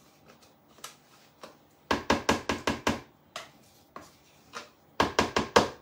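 A spoon knocking against a plastic tub as mascarpone is scooped out into a mixing bowl. The taps come in two quick runs of about five or six, one early and one near the end.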